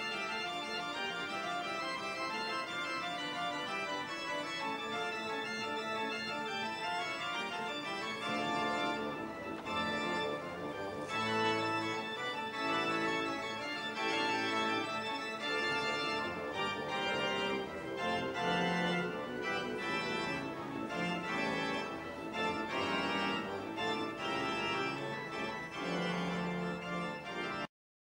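Pipe organ playing held chords whose notes change every second or so. The sound drops out for a moment near the end.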